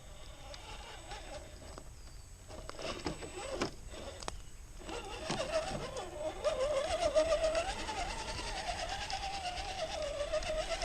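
Electric motor and geared drivetrain of an Axial SCX10 II scale RC crawler whining, its pitch wavering up and down with throttle and load. It starts about halfway through and grows louder, with fine rapid ticking over it.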